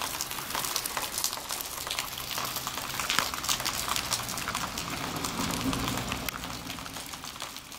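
Footsteps swishing and crunching through tall, wet grass and weeds, a continuous irregular crackling rustle that fades out at the end.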